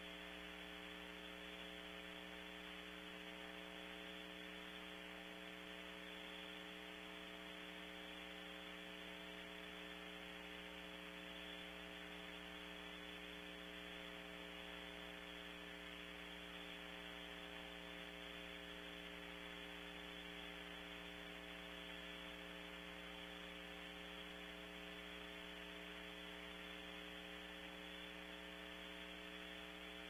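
Steady electrical hum with several fixed tones under an even hiss, from a nest-cavity camera's microphone feed.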